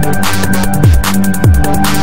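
Fast electronic music with a heavy beat: deep bass hits that slide down in pitch two to three times a second over quick, bright hi-hat ticks.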